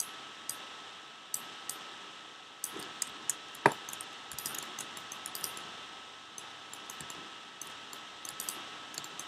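Scattered light clicks of a computer keyboard and mouse, in irregular clusters, over a steady hiss, with one sharper click a little over three and a half seconds in.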